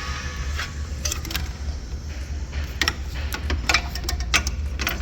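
Sharp metallic clicks and clinks of hand tools working on engine fasteners, coming faster from about three seconds in, over a steady low hum.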